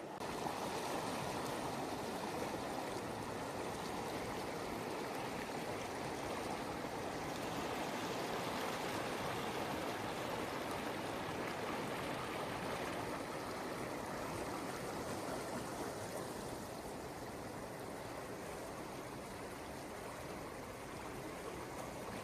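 River water flowing and rushing steadily through a rocky gorge, its gentler stretch rather than the rapids, swelling slightly midway and easing toward the end.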